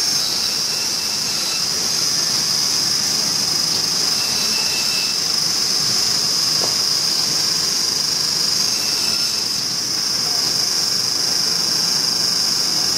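Meat band saw running with a steady high-pitched whine while a slab of bone-in beef ribs is fed through the blade.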